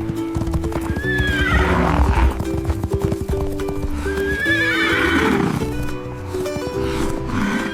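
A horse whinnying twice, first about a second in and again about four seconds in, each call wavering and falling in pitch, over steady background music.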